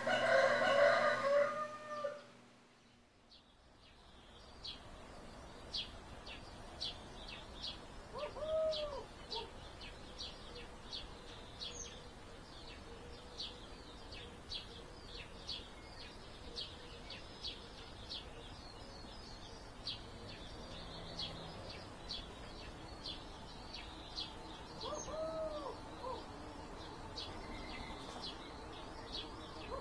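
Morning ambience of a rooster crowing twice, about a third of the way in and again near the end, over small birds chirping repeatedly. A louder pitched sound plays in the first two seconds and stops abruptly.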